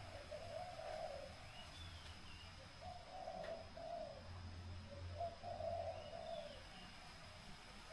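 A dove cooing in repeated low, soft phrases, with a small bird giving two short chirps.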